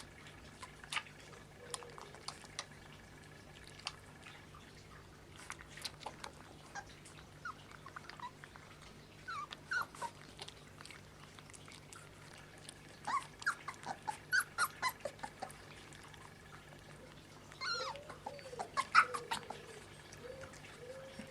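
Young Kleine Münsterländer puppies squeaking and whimpering in short high-pitched bursts that come in clusters, with a few lower whines near the end. Scattered small clicks and ticks sound between the squeaks.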